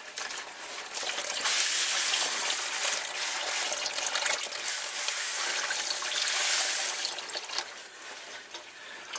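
Engine oil pouring from the 2006 Dodge Dakota's oil pan drain hole, splattering off the belly bar crossmember and into a drain pan below. A steady splashing pour that grows louder about a second in and eases off near the end.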